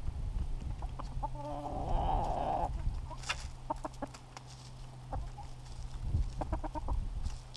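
Chickens clucking close by: a drawn-out call about a second in, then short clucks, with a quick run of clucks near the end.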